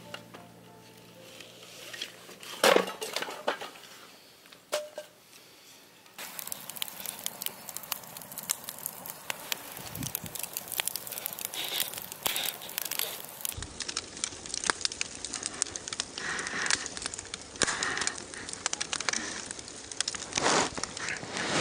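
Wood campfire crackling, with dense sharp pops and snaps. For the first six seconds it is quieter, with two louder knocks.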